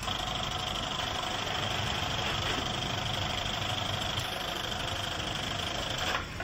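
Industrial sewing machine running steadily at speed, a continuous mechanical hum with a steady high whine, cutting off just before the end.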